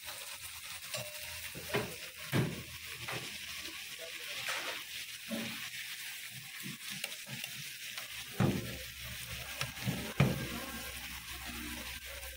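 Fish fillets sizzling steadily in hot oil in a wide black frying pan, with a metal spatula knocking and scraping against the pan several times, the sharpest knocks near the start and about two-thirds of the way through.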